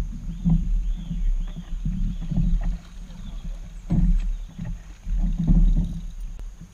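Paddling a plastic sit-on-top fishing kayak with a double-bladed paddle: the blades dip and splash in the water in irregular strokes, with low thumps from the boat.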